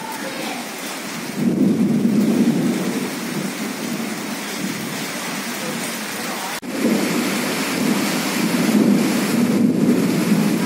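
Steady monsoon rain with deep rumbles of thunder swelling about a second and a half in and again after a brief break just past the middle.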